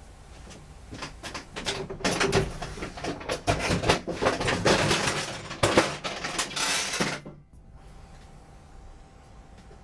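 Rustling, knocks and clattering of a folding ironing board being pulled up and handled, going on for about six seconds.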